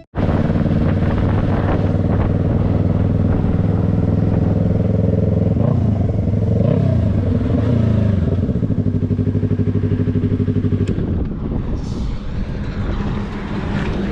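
Yamaha R3's parallel-twin engine running through a freshly fitted Jeskap full stainless exhaust: a steady idle, a brief rev that rises and falls about six to eight seconds in, then a pulsing idle.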